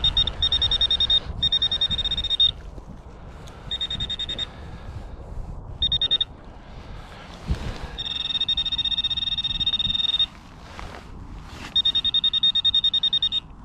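High-pitched electronic metal-detector tone sounding in about six on-and-off bursts as the detector passes over a buried metal target, the longest lasting about two seconds just after the middle.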